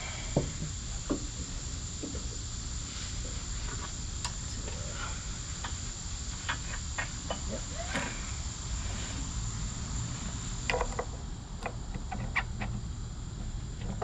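Insects droning steadily on one high tone, with scattered small clicks and knocks.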